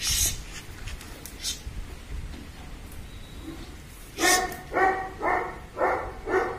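Four-month-old Rhodesian Ridgeback puppy barking five times in quick succession, about two a second, in the second half, while it resists the leash. A short scuffling noise comes at the very start.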